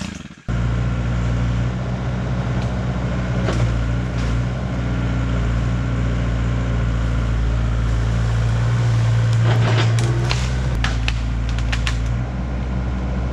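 Komatsu PC75 mini excavator's diesel engine running steadily at working speed, with a cluster of sharp knocks and cracks near the end.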